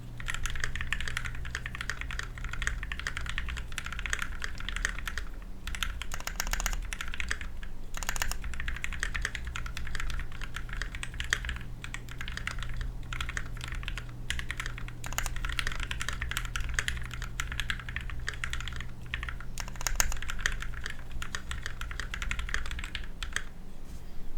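Typing on a KBD67 V2 MKII custom mechanical keyboard with lubed Gateron Yellow linear switches, a brass plate, case foam and ABS keycaps: fast, continuous keystrokes with a few brief pauses.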